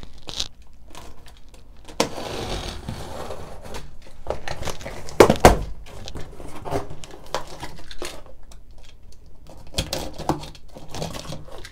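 A cardboard shipping box being opened by hand: a box cutter slitting the packing tape, then the flaps pried up and folded back with rustling, scraping and knocks of cardboard. The loudest moment is a pair of sharp knocks about five seconds in.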